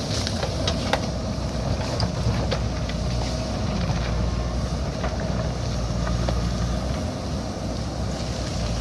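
JCB backhoe loader's diesel engine running with a steady low drone that wavers in pitch, with scattered sharp clicks and knocks.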